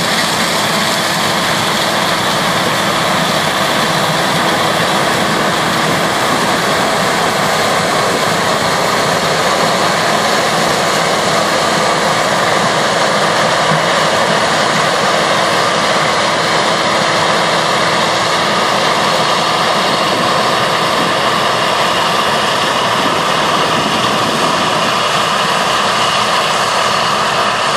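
New Holland TF46 combine harvester running under load while harvesting corn with a Capello R8 corn header. The engine and threshing machinery make a loud, steady, unbroken noise.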